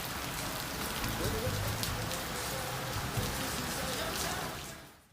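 Steady rain falling, with scattered drips, fading out near the end.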